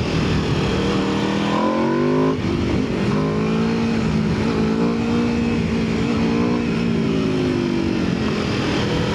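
Aprilia RSV4 superbike's V4 engine running loud under acceleration: the pitch climbs, breaks briefly about two seconds in as for a gear change, then holds a high, slowly rising note that eases off near the end.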